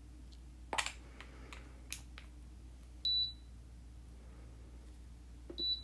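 Gel nail curing lamp beeping twice, short high beeps about two and a half seconds apart, with a few light clicks and taps of tools and tips being handled.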